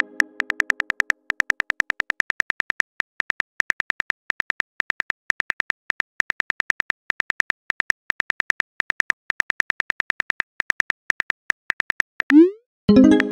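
Rapid, even clicks of a phone messaging app's keyboard typing sound effect, several a second. Near the end comes a short rising swoosh and a ringing chime as the message is sent.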